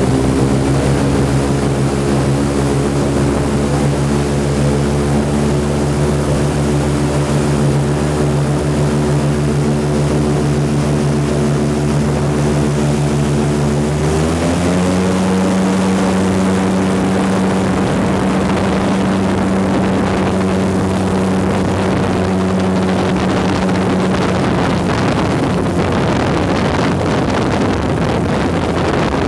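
Airboat's engine and aircraft-style propeller running loud and steady, then revving up to a higher pitch about halfway through and holding there as the boat speeds across the water, with more rushing noise after the rise.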